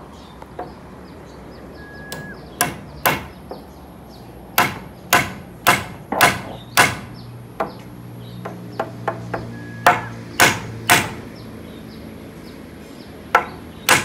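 Hammer driving nails into roof timber: runs of sharp blows about half a second apart with pauses between them, and a few lighter taps near the middle.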